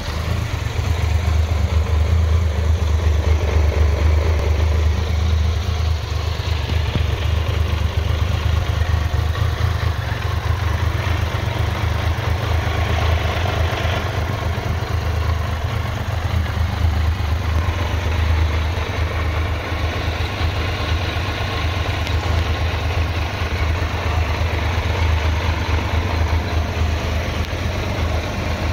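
2018 Triumph Tiger 1200 XRT's three-cylinder engine idling steadily.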